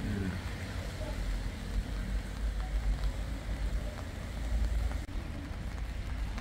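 Wet-weather street ambience: a steady low rumble with a faint hiss over it.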